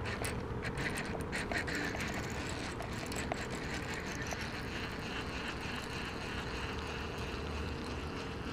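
Baitcasting reel being cranked, its gears giving a run of small regular clicks as line is wound in. The rod is bent under load from the lipless crankbait, which is either on a fish or stuck on something.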